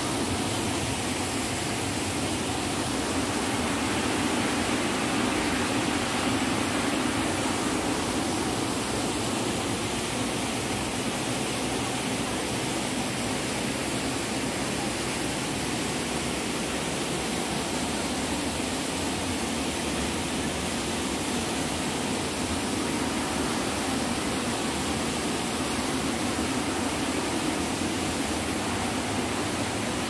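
Steady rush of a waterfall pouring over rocks into a pool, an even, unbroken noise.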